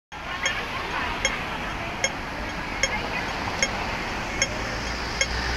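Pedestrian crossing signal ticking at a slow, even rhythm, about one tick every 0.8 seconds, the wait signal of a crossing. It sounds over the steady noise of a busy city street with traffic and passing voices.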